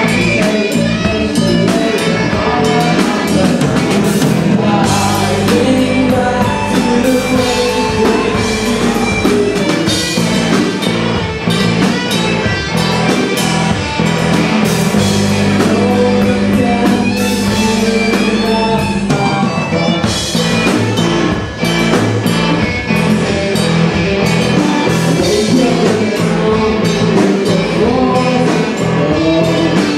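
Live rock band playing: electric guitars, bass guitar and drum kit, with a lead singer.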